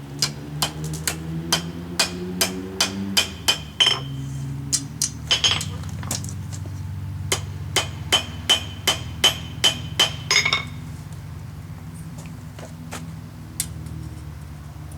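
A hammer striking steel in a run of about two dozen blows, two to three a second, some with a metallic ring, as the handle of a forged egg cooker is bent to a flatter angle; the blows stop about ten seconds in. A steady low hum runs underneath.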